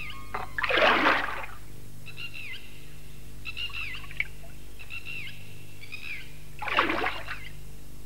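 Two brief splashes of water, the first about a second in and the second near the end, over repeated short falling bird chirps and a low steady hum.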